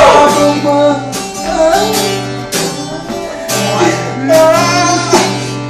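Acoustic guitar strumming chords in a steady rhythm, an instrumental stretch between sung lines of a romantic Brazilian song.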